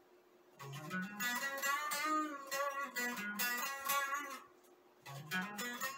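Golden Les Paul-style electric guitar playing a single-note melody: a rising run of notes starts about half a second in, then held notes that bend and waver. It pauses briefly near the end before the next phrase begins.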